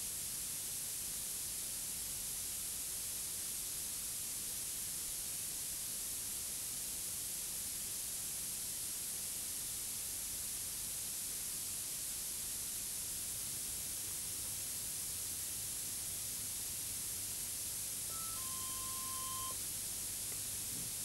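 Steady hiss from a worn VHS recording. About 18 s in come two short electronic tones, a brief higher one and then a longer lower one.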